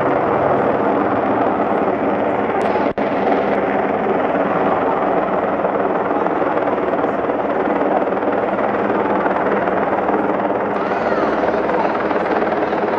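Steady, loud engine drone over the street, with spectator voices mixed in. The sound drops out briefly about three seconds in.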